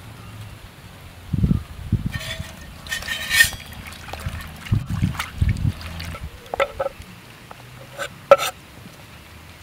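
Water splashing and sloshing in a metal basin as brinjals are washed by hand, with a few dull thumps. Near the end come sharp knocks of a knife on a wooden cutting board, the last one the loudest sound.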